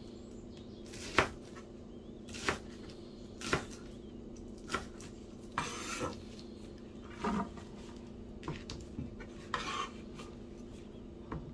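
Cleaver chopping through a stack of betel leaves onto a plastic cutting board, in slow, separate strokes about once a second, over a faint steady hum.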